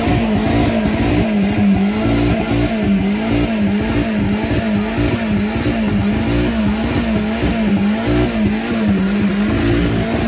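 Chevrolet Chevette doing a burnout: the engine is held at high revs, its note dipping and rising over and over, while the spinning rear tyre makes a continuous screeching hiss.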